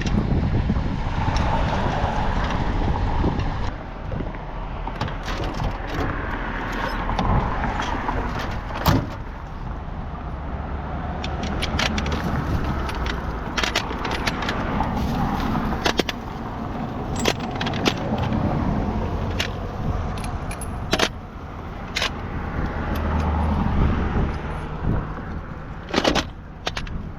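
Scattered metal clinks and clicks from a road sign stand being worked on by hand, over gusty wind rumbling on the microphone and passing road traffic.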